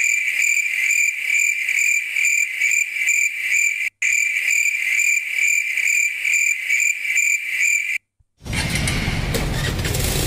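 Dubbed-in cricket chirping sound effect: one high chirp repeating evenly about two to three times a second, looped, with no background under it. It is the comedy 'crickets' cue for an awkward silence. It cuts off abruptly after about eight seconds, and after a brief silence street background noise comes back.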